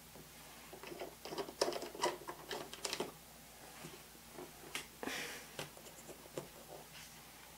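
Small clicks and taps of hobby tools handling a small model part on a workbench. There is a dense run of them for about two seconds from about a second in, then scattered single clicks, with a brief soft rustle about five seconds in.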